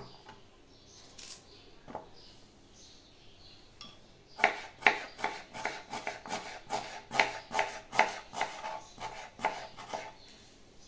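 Kitchen knife slicing a red onion on a plastic cutting board: a few faint knocks at first, then from about four seconds in a run of chopping strokes, two or three a second.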